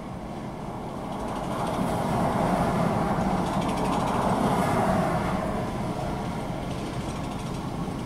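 Highway traffic passing: a steady hum of tyres and engines that swells over the first couple of seconds and eases as the vehicles go by.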